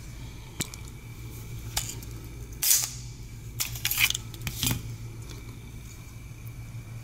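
Sharp metallic clicks from a Para USA GI Expert 1911 pistol's steel slide and action as it is handled, a few single clicks with the loudest and longest about two and a half seconds in and a quick cluster around four seconds in. A steady low hum runs underneath.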